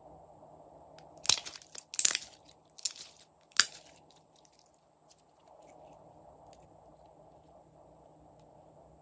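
Blue slime being squeezed and worked in the hands, giving four loud clusters of wet crackling and popping between about one and four seconds in, then only faint soft clicks as it is stretched and let fall into the dish.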